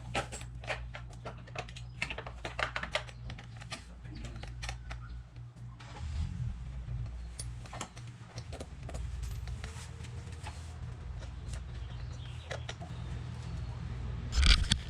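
Hand ratchet with a 5 mm Allen bit clicking in quick runs as the cover bolts on a Kawasaki Z125 Pro are loosened, then scattered clicks and taps later on. A steady low hum runs underneath.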